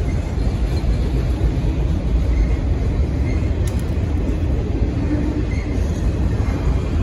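BNSF freight train of enclosed autorack car carriers passing close by: a loud, steady rumble of wheels rolling over the rails.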